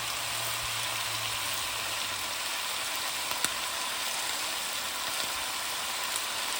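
Chicken thighs and gizzards sizzling in hot vegetable oil in a pan, a steady crackle. A low hum stops a little over two seconds in, and a single sharp click comes about three and a half seconds in.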